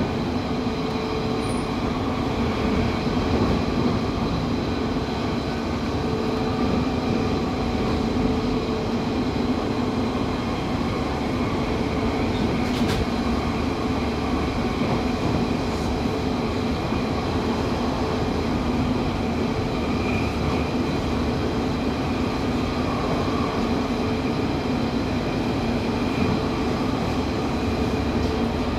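London Underground 1992 Stock tube train running at speed, heard from inside the carriage: a steady rumble with an even hum underneath.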